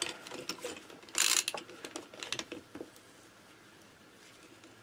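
Socket and ratchet wrench working the cylinder-head stud nuts of a Minarelli AM6 engine: light metal clinks and a short ratchet rattle about a second in.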